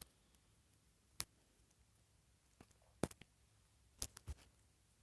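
A few light clicks and taps of small plastic toy pieces being handled: one about a second in, a quick cluster around three seconds, and two more around four seconds, with near silence between.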